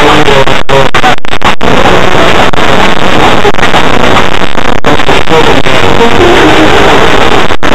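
Electric motor and gear drivetrain of an Axial RC rock crawler running up close, loud and distorted.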